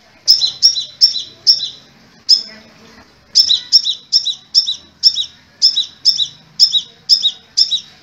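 Caged male crimson sunbird (sepah raja) calling in a series of short, sharp, high chirps. A few come early with gaps, then a steady run of about three a second fills the second half.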